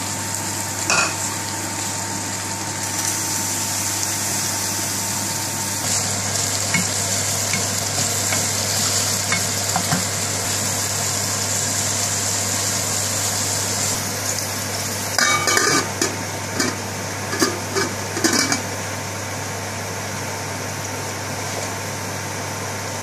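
Chopped onions sizzling in hot vegetable oil in a frying pan, stirred with a wooden spoon, with a few light scrapes and ticks. About two-thirds of the way through, a short run of knocks and clatter from the pan and utensils. A steady low hum sits underneath.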